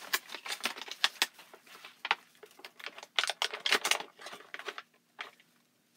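Quick plastic clicks and rustles as a nail clipper set and its case are handled and opened, coming in clusters and dying away near the end.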